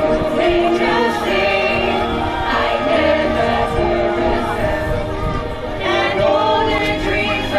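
A choir of several voices singing a Christmas carol, with long held notes that shift in pitch every second or so.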